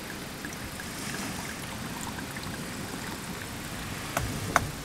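Wine poured from a glass bottle into an insulated steel tumbler over ice cubes, a steady trickle and splash. Near the end come two sharp clinks.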